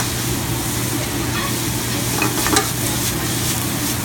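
Ramen noodles with chicken, bean sprouts and onion sizzling in a hot pan over a gas flame as they are stirred and tossed with metal tongs, with a few clinks of the tongs against the pan a little over two seconds in. A steady low hum runs underneath.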